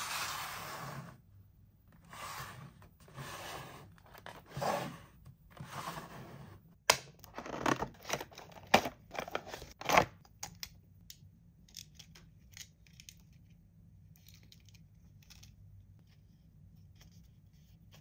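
Toy packaging being cut and torn open: a series of noisy cutting and tearing strokes over the first ten seconds, then only faint scattered clicks.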